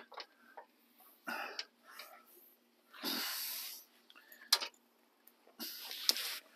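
A man's heavy breathing, three breathy exhales about a second long, with a few sharp clicks and taps of his hand against the plastic truck grille.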